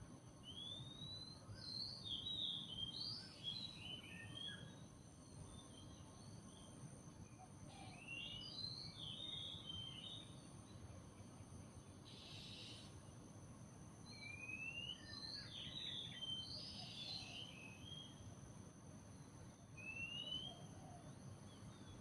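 Several birds singing in separate bouts of quick chirps and short rising whistled notes, with gaps of a few seconds between bouts. Behind them runs a steady high-pitched whine and a low background rumble.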